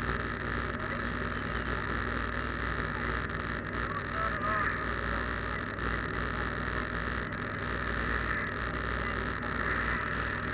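Steady drone of a car's engine and tyres at highway cruising speed, heard from inside the cabin.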